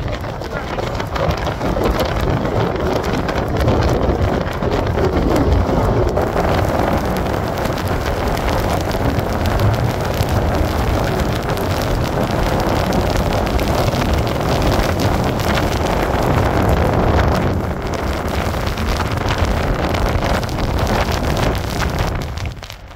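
Storm-force wind buffeting the phone's microphone: a loud, continuous rumbling rush that drops away sharply near the end as the wind is cut off.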